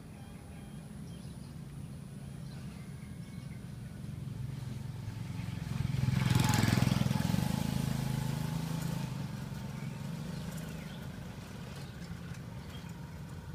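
A motor vehicle passing by: its engine rumble grows louder, is loudest about six and a half seconds in, then slowly fades away.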